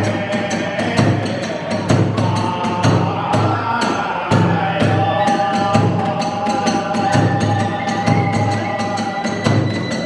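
Kagura hayashi music played live and fast: a big taiko drum beating about twice a second under rapid clashing of small hand cymbals (tesarigane), while a bamboo transverse flute (fue) holds long, high notes that shift in pitch a few times.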